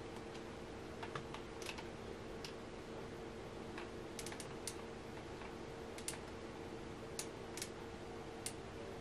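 Scattered light clicks at irregular intervals, some in quick clusters, over a steady low hum and faint hiss.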